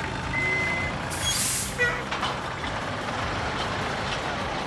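Tractor engine running steadily, with a short hiss a little over a second in and a brief high tone just after the start.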